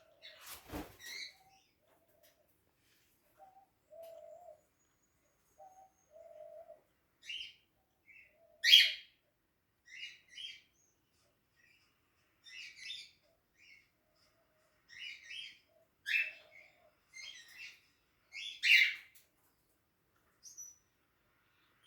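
Pet cockatiels chirping in short, scattered calls, with a brief knock about a second in.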